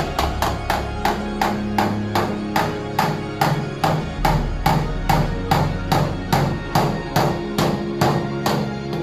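Background music with a quick, steady percussive beat over sustained bass and chord notes.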